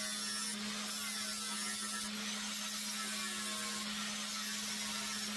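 Electric angle grinder running steadily with its disc against a welded steel mower deck, grinding the weld flush so the wheel has a flat mounting surface. An even motor hum under the sound of the disc grinding on the metal.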